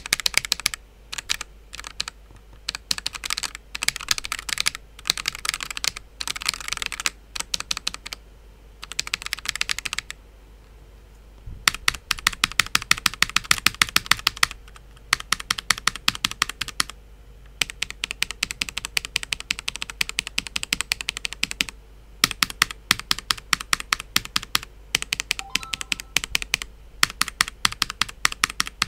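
Typing on a mechanical keyboard fitted with Akko Lavender Purple tactile switches: runs of rapid key clacks with short pauses between them, picked up by a headset microphone held close to the keys.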